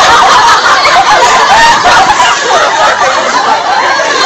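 Many high voices chattering over one another at once, a continuous babble of talk with no single speaker standing out.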